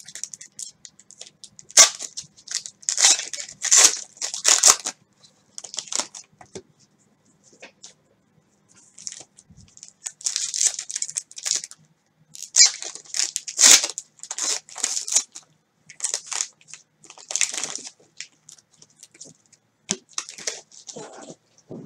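Trading cards being handled: plastic card sleeves and cellophane pack wrappers crinkling and rustling in irregular bursts, with a short lull about a third of the way through.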